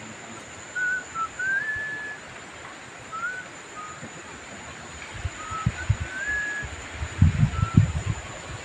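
Whistled notes, a few short rising glides and held tones every second or so, over a steady thin high-pitched tone. Low rumbling thumps come in from about five seconds in and grow stronger near the end.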